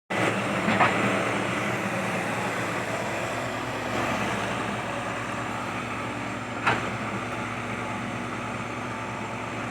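Kobelco SK120 excavator's diesel engine running steadily, with two short sharp knocks, one about a second in and one near seven seconds.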